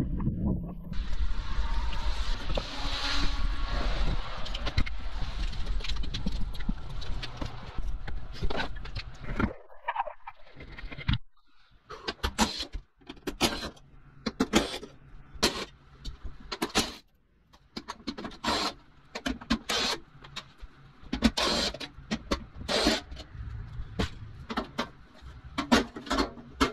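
For about the first nine seconds, wind rumbles on the microphone along with handling noise. After a brief pause, a quick, irregular string of short clicks and clanks follows: hand tools and metal parts being worked on a hybrid battery pack.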